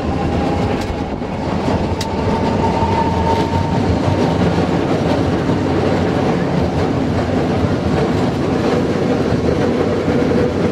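Historic streetcar running along its rails, heard from inside the car: a steady rumble, with a faint whine that fades over the first few seconds and a single sharp click about two seconds in.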